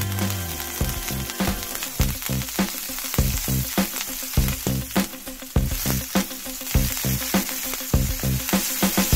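Ribeye steak sizzling steadily in a hot cast iron pan with oil, garlic and thyme, over background music with a steady beat.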